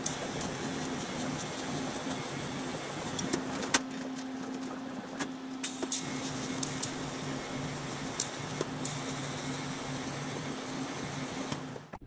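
TIG welding on a car frame: the arc's steady buzzing hiss with a low hum under it, broken by a few sharp ticks, stopping abruptly at the very end.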